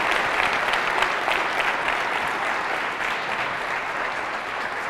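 Audience applauding, a dense steady clatter of many clapping hands that eases off slightly near the end.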